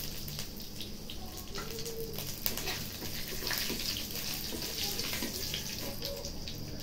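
Dried red chillies and bay leaves sizzling in hot oil in a kadai, a steady high hiss with small crackles, while a spatula stirs and scrapes the pan now and then.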